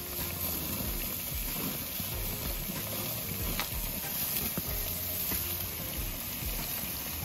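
Sausages and potato halves sizzling on a gas grill, a steady hiss.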